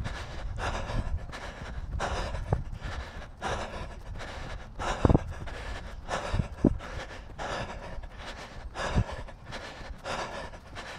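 A runner's hard, rhythmic breathing close to the microphone, panting in and out at an even pace over a constant low rumble. A few sharper thumps stand out around the middle, the loudest moments.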